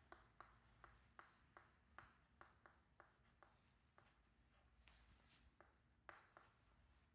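Faint writing by hand: short tapping strokes of a pen or marker, about two to three a second, thinning out after the middle, over quiet room tone.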